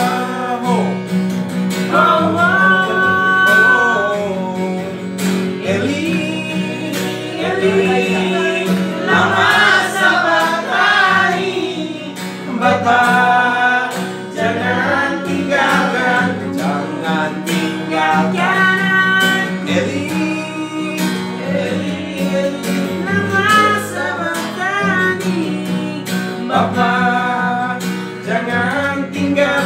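Young men singing a gospel song in Indonesian to a strummed acoustic guitar, in phrases with short pauses between them.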